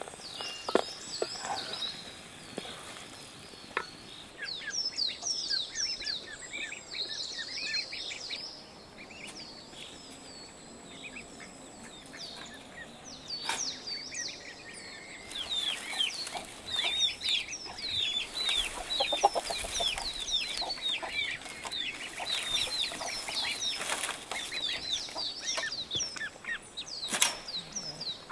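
Many small birds chirping in quick, high, falling notes, with chickens clucking among them and a few sharp knocks.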